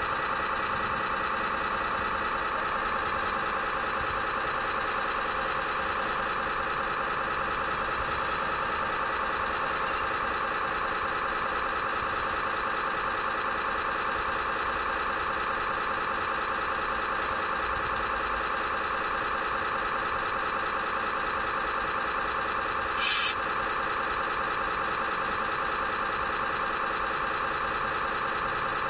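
RC construction model's sound unit playing a steady diesel engine sound through its small speaker, with faint high whines that come and go. A short hiss comes about two-thirds of the way through.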